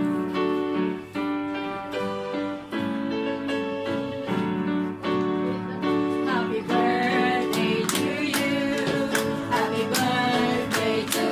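Electronic keyboard playing sustained piano-style chords; about six seconds in a woman starts singing a song along with it, and hand claps join in steady time, about two a second.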